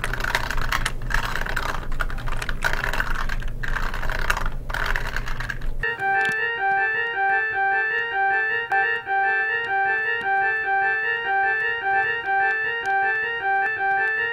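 A loud, rumbling noise for about six seconds, which cuts off suddenly. Then organ-like keyboard music plays a quick, repeating figure of short notes.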